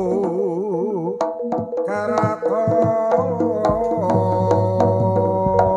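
Javanese jaranan dance music played live: hand-drum strokes over a sustained melodic line that wavers in pitch for about the first second, then holds steady notes.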